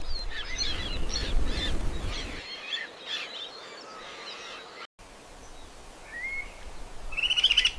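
Wild birds chirping and calling, many short overlapping calls at first over a low rumble. After a brief break, there is a single rising whistled note, then a short, fast trill near the end.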